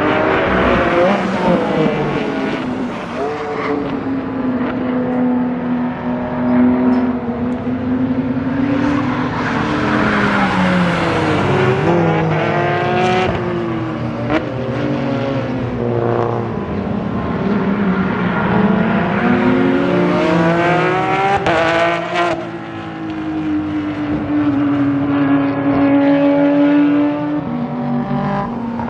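Porsche 911 997 GT3 Cup race car's flat-six boxer engine at high revs on track. The pitch climbs through the gears and falls on downshifts, several times over, with the sound swelling and fading as the car passes and brakes into corners.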